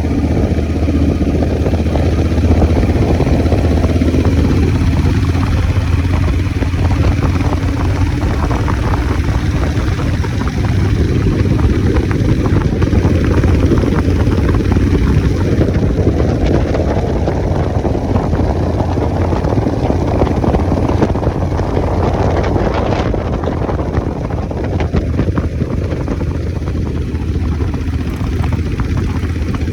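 Scrambler motorcycle on the move, its engine running steadily under a heavy rush of wind on the microphone.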